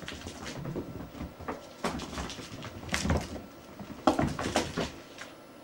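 Scattered knocks and thumps in a small room, the loudest about two, three and four seconds in.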